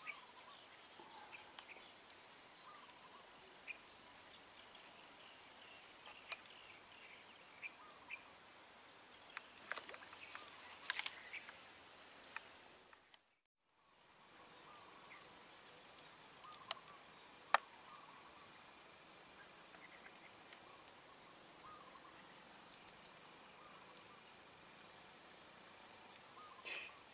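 Steady, high-pitched chorus of insects, with a few faint clicks scattered through it. The chorus fades out and back briefly about halfway through.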